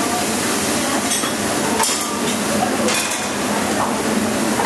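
Food sizzling on a hot steel teppanyaki griddle, with flat metal spatulas scraping and clinking against the plate several times as bean sprouts are turned.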